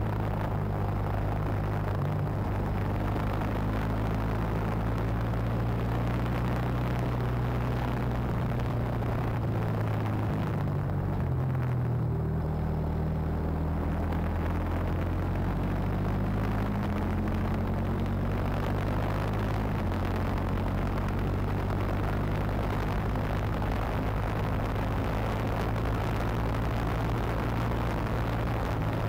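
Racing kart's engine running hard at speed, heard from onboard. About halfway through its pitch sags and then climbs back, and a little later it steps up and down again as the revs change.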